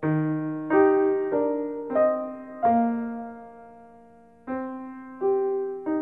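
Slow piano music: single notes and chords struck one after another, each left to ring and fade, with one note held longer in the middle.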